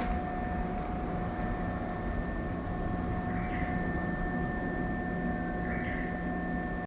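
Shibayama Railway 3600-series electric train giving off a steady low rumble with two steady whining tones that do not change in pitch.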